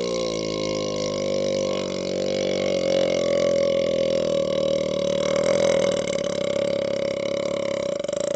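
One long, unbroken burp from Sprite carbonation, loud and held at a steady low pitch, turning rougher and raspier in its second half.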